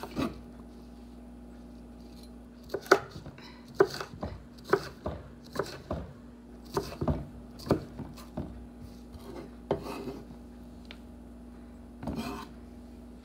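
Kitchen knife chopping red bell pepper on a wooden cutting board: a run of irregular knocks of the blade on the board, starting about three seconds in. Near the end comes a short scrape as the blade slides under the chopped pieces.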